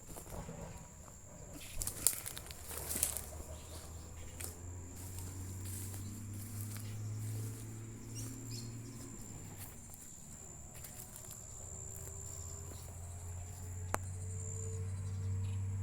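Outdoor ambience with an insect's steady high-pitched trill throughout, over a low rumble that swells twice, and a few clicks and rustles about two to three seconds in.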